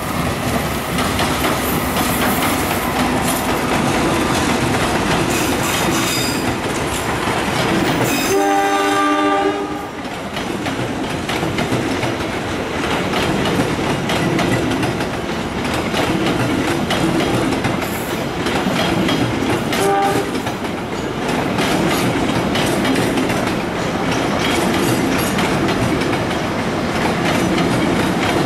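Diesel-hauled passenger train rolling past, its wheels clattering steadily over the rail joints. A train horn sounds one long blast about eight seconds in and a short toot about twenty seconds in.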